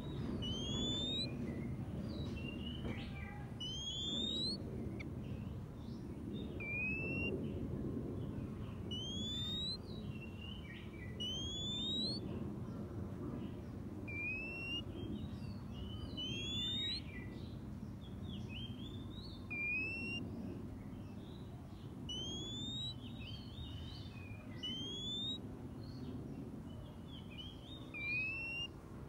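Oriental magpie-robin calling: a clear rising whistled note repeated every two or three seconds, with softer chirps in between, over a steady low background rumble.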